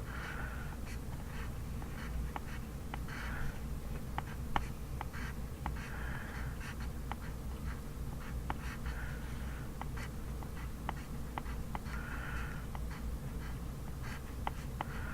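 Pencil writing on paper: short scratchy strokes coming in clusters about every three seconds, with many small taps and clicks between them, over a steady low hum.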